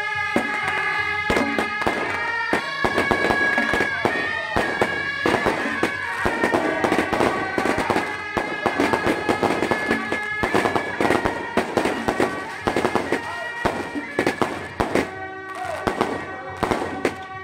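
Firecrackers popping in rapid, irregular strings over music with sustained, reedy wind-instrument notes.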